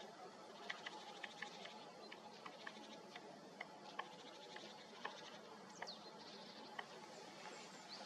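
Faint, irregular ticks of a great spotted woodpecker picking at a pine cone wedged in a crevice of the trunk, prising out seeds. A short high bird call comes about six seconds in.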